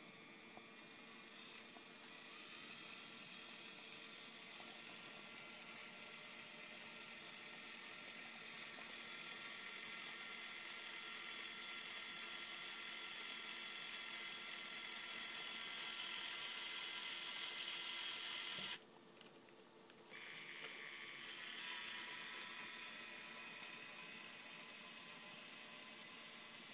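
Lego Technic 8052 Container Truck's Power Functions electric motor whirring through its plastic gears and linear actuators as it drives the arm to lift the container. The whine grows louder for most of the run, stops abruptly about 19 seconds in, then starts again a second and a half later, a little quieter.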